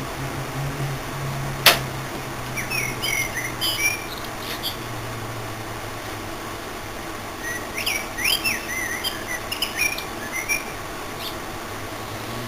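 Steady low hum from a microwave oven transformer overdriving an air-conditioner reversing valve solenoid coil with its metal housing off, with one sharp click a little under two seconds in. Birds chirp in the background in two spells.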